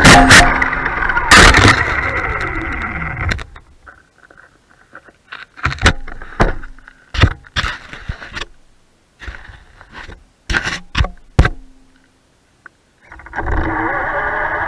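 Traxxas Stampede 4x4 RC truck's electric motor and geartrain whining at speed with a couple of hard knocks as the truck tumbles. The whine winds down about three seconds in, and a stretch of scattered short knocks and scrapes follows. The motor whines up again near the end as the truck drives off.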